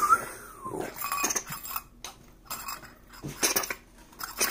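Metal Poké Ball–style Quick Ball tin handled and turned in the hand, its two halves giving a scattering of light clicks and clinks.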